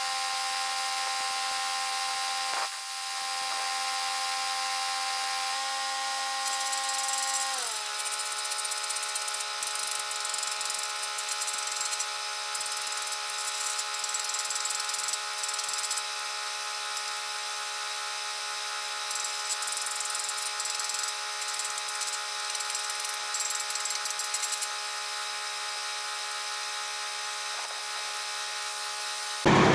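A power tool's motor running with a steady whine that drops slightly in pitch about eight seconds in, with a rough hiss on top through long stretches. It ends abruptly in a louder rush of noise.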